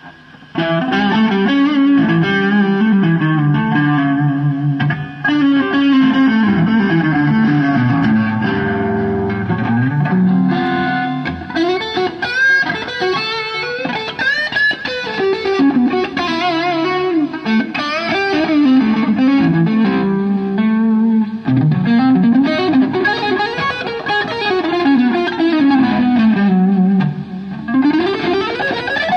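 Electric guitar played through effects pedals with some distortion: a lead line with many gliding bends and slides, coming in suddenly about half a second in.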